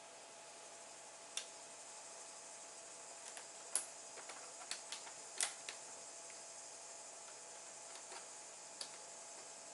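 Scattered small sharp clicks and ticks of a screwdriver and tiny screws being handled while a screw is lined up in a laptop display frame, the loudest about four and five and a half seconds in, over a faint steady hiss.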